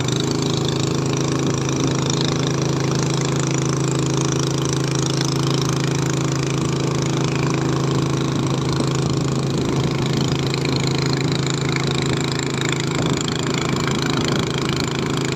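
A small boat engine running steadily at an even speed.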